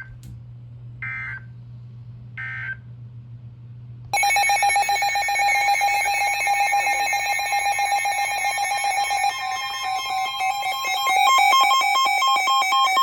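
Emergency Alert System tones from a weather radio: two short buzzy data bursts, the end-of-message code closing a tornado warning, then about four seconds in the loud two-tone attention signal. It is a steady, harsh, buzzing two-note beep that runs for about nine seconds and heralds a new severe thunderstorm warning.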